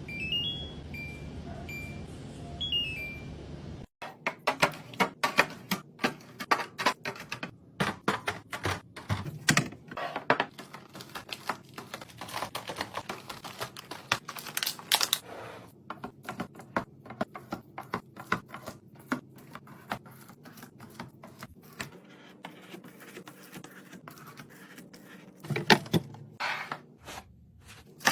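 Rapid, irregular clicking, tapping and knocking of items being handled and set in place while restocking a fridge. The first few seconds hold a steady low hum with a few short high tones, then the clicking starts abruptly and thins out later on.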